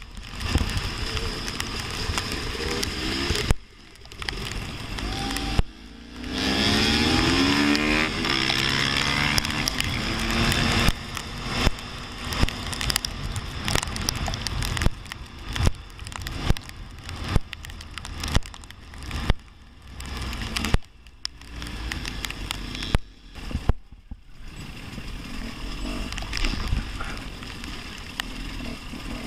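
Husqvarna TX 300 two-stroke dirt bike engine revving hard as it is ridden, its pitch rising as it accelerates, with a constant rush of wind and spray and repeated sharp knocks. The sound cuts out abruptly a few times.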